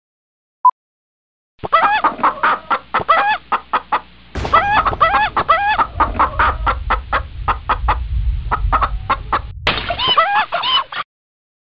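Hen clucking rapidly, many short clucks in quick succession, after a single short beep. A low rumble runs under the clucks from about four seconds in until shortly before they stop.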